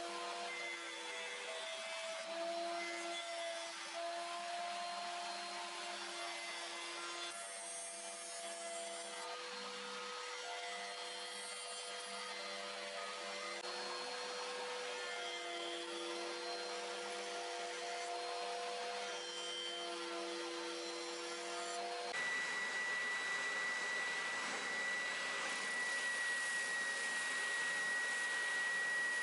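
Router on a router table running with dust extraction, its steady pitch shifting a little as wood is fed past the bit. About two-thirds of the way in it gives way to an oscillating spindle sander running, a steady higher whine over a hiss.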